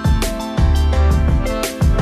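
Background music with a steady beat over bass notes.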